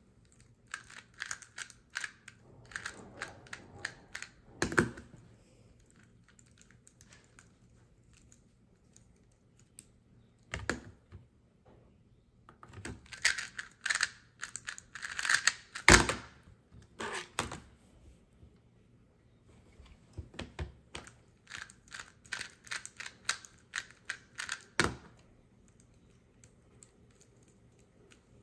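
A 2x2 speed cube (MGC Elite) turned rapidly in three bursts of fast clicking, each lasting a few seconds, which are speed solves. Each burst ends with a sharp knock of hands slapping down on a stack timer to stop it.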